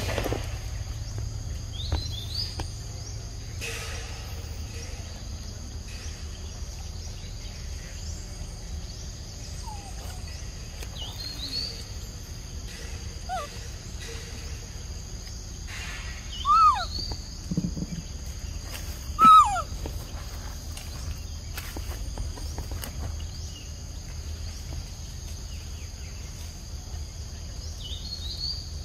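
Forest ambience: a steady high insect drone over a low rumble, with scattered short, falling chirp-like animal calls; two louder calls come a little past the middle.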